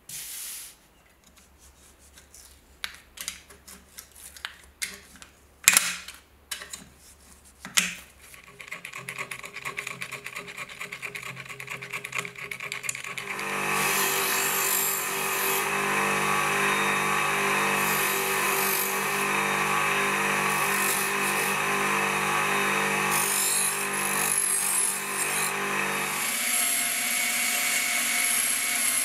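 A few sharp knocks and clicks as a metal bracket is handled, then an electric bench polishing motor runs steadily for about thirteen seconds while the bracket is pressed against its buffing wheel. Near the end the sound changes to a cordless drill spinning a wire brush wheel against the bracket.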